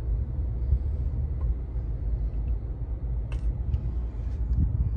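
Low, steady rumble of a car creeping along in traffic, heard from inside the cabin, with a single short click a little over three seconds in.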